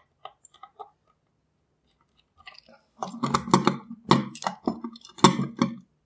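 A screwdriver grinding and creaking against a stubborn screw in the lock's steel cylinder plate, in a run of short irregular strokes starting about three seconds in, after a few faint ticks of metal parts being handled.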